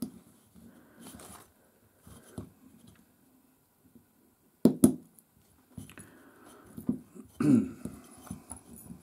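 Small metal retaining clip clicking and scraping against the spool of a Daiwa BG 3500 spinning reel as it is worked into its groove over the drag washers; the clip is stubborn and will not seat. Two sharp clicks a little past halfway are the loudest.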